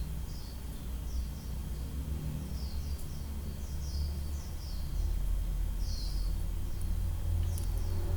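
Small birds chirping in the background: short, falling chirps repeated in loose clusters, over a steady low rumble of ambient noise.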